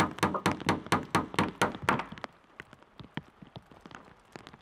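Rapid hammering on wood, about four sharp knocks a second, stopping about two seconds in; faint scattered taps follow.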